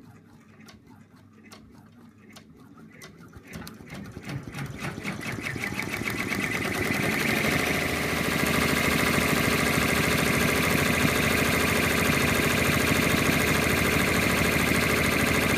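Embroidery machine stitching out lettering. It begins with a few faint slow needle clicks, speeds up over several seconds, and settles into a steady, rapid run of stitches.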